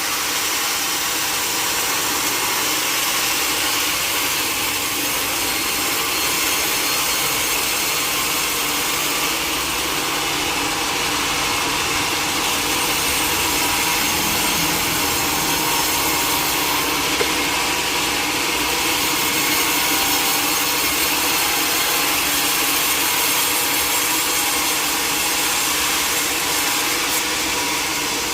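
A sawmill saw cutting steadily through a log, the blade running in the wood without a break.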